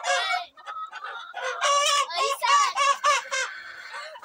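Rooster calling loudly while it is held and carried by hand: one short falling squawk at the start, then a run of squawks from about a second and a half in.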